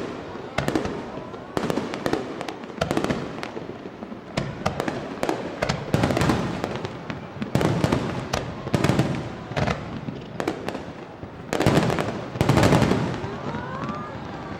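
Aerial fireworks shells bursting one after another, a steady run of bangs and crackles with a dense, loud volley of bursts near the end.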